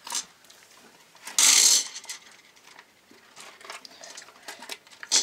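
M&M's candies dropping and clicking into a stainless steel pot as the plastic packets rustle, with one louder half-second burst of rattling and crinkling about a second and a half in.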